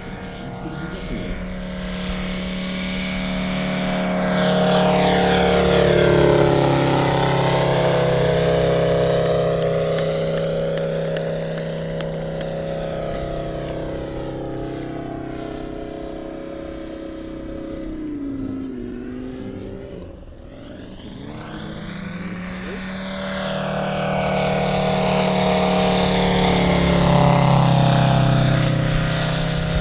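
Five-cylinder Valach VM-250 R5 radial engine of a half-scale model Bücker Jungmeister biplane in aerobatic flight. It swells loud twice as the plane passes close, and fades in between as it flies away. Its pitch falls about two-thirds of the way through and then rises again as the sound builds near the end.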